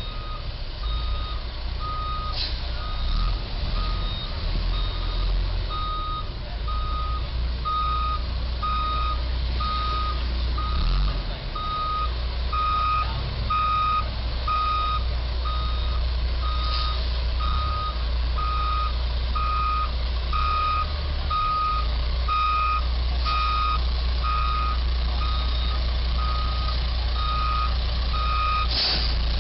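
Box truck's backup alarm beeping steadily, about once a second, as the truck reverses, over a low steady rumble.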